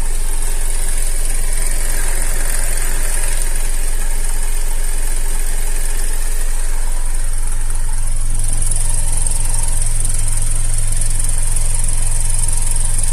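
Opel Antara's 2.4-litre A24XE four-cylinder petrol engine idling with a fast, steady drumming rattle from the timing chain, which the owner takes for a chain knocking against something it shouldn't: a stretched or poorly tensioned timing chain.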